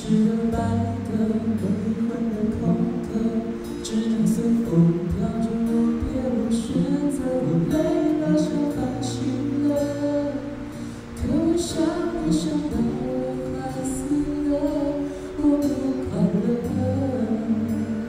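Live song played on acoustic guitar with a singing voice carrying the melody.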